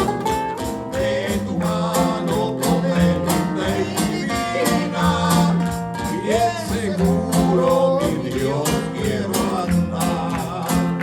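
Spanish-language Christian praise song (alabanza): singing over guitar, bass and a steady beat.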